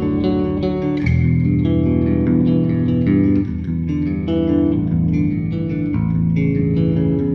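Squier Bass VI six-string bass played as ringing chords and picked single notes through a Line 6 Helix guitar patch. Its strangle switch, a high-pass filter, is engaged and shelves off some of the low mud.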